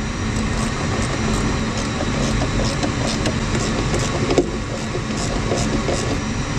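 Steady mechanical background hum, with light scattered clicks of a hand tool turning screws into a jet engine's fan-duct acoustic panel, and one sharper knock about four and a half seconds in.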